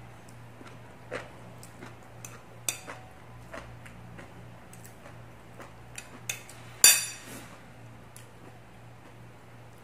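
Metal chopsticks clicking and clinking against ceramic plates of noodles, mixed with scattered eating sounds, over a steady low hum. The loudest clink comes about seven seconds in, with a short ring.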